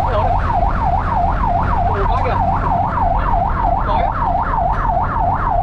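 Fire truck's electronic siren on a fast yelp, its pitch sweeping up and down about four times a second, heard from inside the cab over the steady low drone of the truck's engine and road noise.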